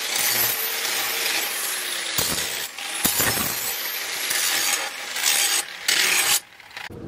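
Angle grinder with an abrasive disc grinding the edge of a steel cleaver blade cut from a tractor disc-plough disc: the loud hiss and whine of the disc on steel. It has a few brief breaks and stops suddenly near the end.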